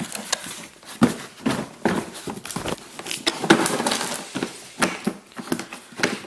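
Irregular clicks and knocks of a hard plastic carrying case being handled and opened, its latches and lid clacking.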